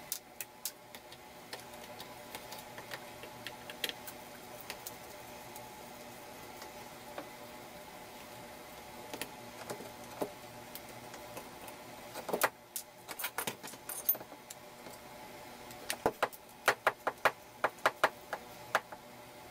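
Small sharp clicks and taps of a screwdriver with a T10 security Torx bit and tiny steel screws being worked out of the plastic housing of a Milwaukee M18 Fuel impact driver. The clicks are scattered at first, with a quick cluster about two-thirds of the way through and a rapid run of them near the end.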